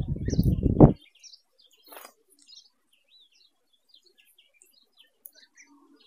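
A loud low rumble of noise in the first second, then scattered faint, short high chirps and calls of small birds.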